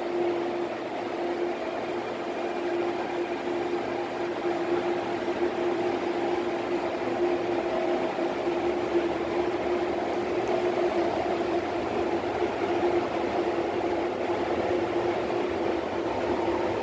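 Steady hum of an MTR Airport Express A-train standing at the platform behind the screen doors, with a constant mid-pitched tone over an even rushing noise that grows slightly louder.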